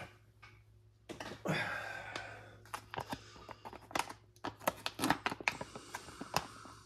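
A ration retort pouch is torn open and handled, with a rough tearing and crinkling sound about a second in, then a run of short sharp clicks and taps.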